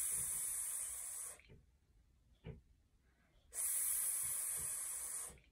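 A woman making the stretched phonics sound /s/ twice, 'sssss' hissed through her teeth. Each hiss lasts a couple of seconds, the first ending about a second and a half in, the second starting about halfway through.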